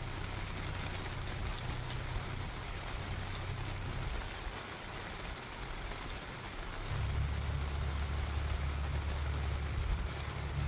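Steady rain falling, with a low rumble underneath that fades about four seconds in and comes back louder about seven seconds in.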